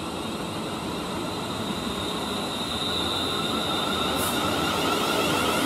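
London Northwestern Class 350 Desiro electric train running past along the platform: wheels on rail with an electric traction whine. The whine rises in pitch and the sound grows steadily louder as the train picks up speed.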